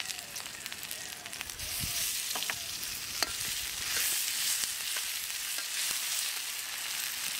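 Sliced onions and garlic paste sizzling in a black iron kadai while being stirred with a metal slotted spoon; the sizzle grows louder about a second and a half in, and the spoon clinks against the pan a couple of times.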